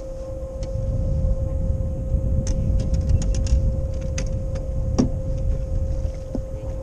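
Bass boat's electric trolling motor giving a steady whine under a low rumble of wind on the microphone. Around the middle comes a quick run of clicks and then a single sharper knock as gear is handled on the boat's deck.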